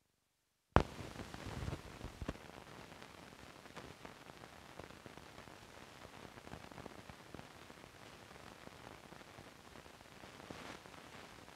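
Hiss and crackle of a 16mm film's optical soundtrack running over blank leader, beginning with a sharp click just under a second in, then steady hiss with scattered small pops.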